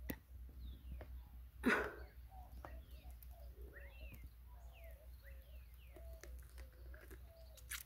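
Birds chirping and calling, faint, with many quick short chirps and a string of lower wavering calls. One brief sharp noise stands out about two seconds in.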